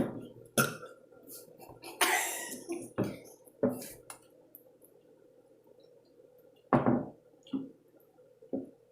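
Several short burps and throat noises from a contestant who has been drinking soda, the loudest about seven seconds in. Light clinks and a brief hiss about two seconds in are mixed among them.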